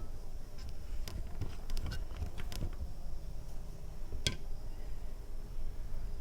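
Mukbang eating and food-handling sounds: scattered soft clicks and small smacks, with one sharper click about four seconds in, over a low steady rumble.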